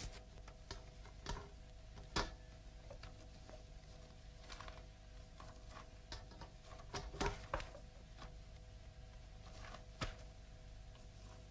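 Quiet background: a faint steady hum with scattered soft clicks and knocks, the most noticeable about two seconds in and a small cluster around seven seconds.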